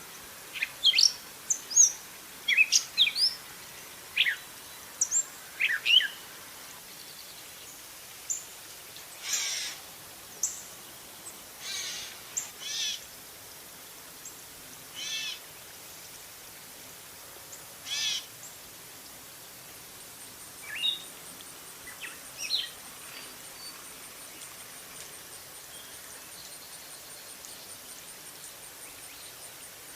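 Gray catbird vocalizing: a run of quick, varied, squeaky song phrases, then a handful of longer mewing, cat-like calls spaced a couple of seconds apart, and a short burst of song again about two-thirds of the way in, over a steady background hiss.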